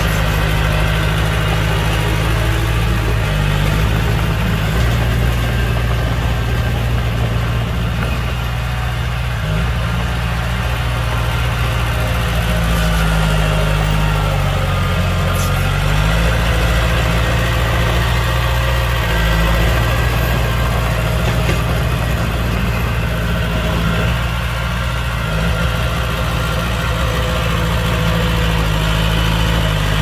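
Heavy diesel engine of a dump truck or bulldozer running steadily, its note shifting briefly about halfway through.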